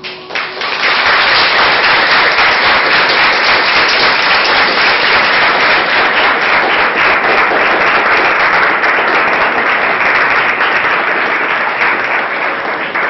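A crowd applauding loudly. The applause breaks out about half a second in and eases off slightly near the end.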